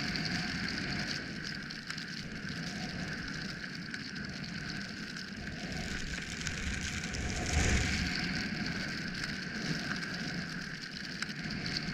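Skis hissing through deep powder snow, with a continuous rush of air noise on the camera's microphone. It surges louder for a moment about two-thirds of the way through.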